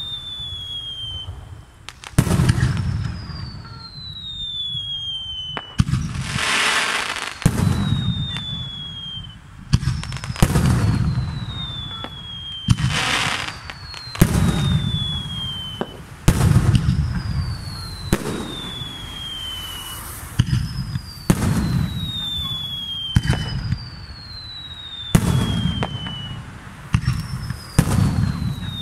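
Aerial fireworks shells bursting in quick succession, sharp bangs each followed by a low rolling echo. A high whistle falling in pitch repeats about every two seconds, and twice a crackling hiss lasts about a second.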